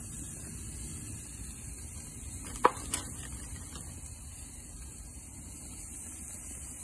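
Raw burger patties being laid by hand onto a wire grill grate over hot charcoal: a low steady background, with a sharp tap on the grate about two and a half seconds in and a couple of lighter taps soon after.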